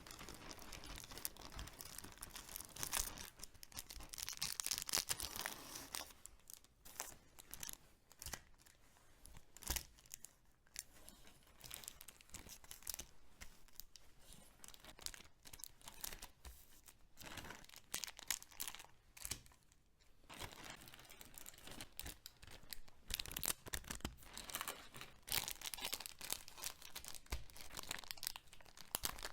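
Packaging being torn open and crinkled by hand, in irregular rustling spells, busiest for a few seconds near the start and again near the end.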